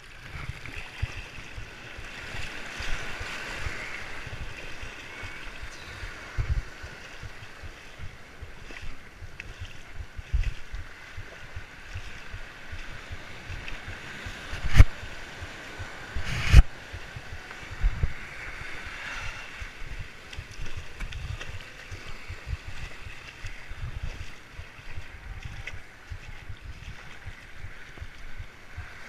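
Small waves washing over sand and rocks at the water's edge, heard close up, with wind buffeting the microphone. Two sharp knocks come about two seconds apart, around halfway through.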